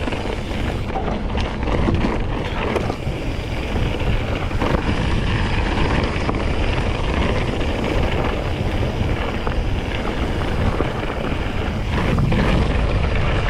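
Wind rushing over the microphone of a camera on a moving mountain bike, over a steady low rumble from the tyres rolling on a rough trail, with a few faint knocks.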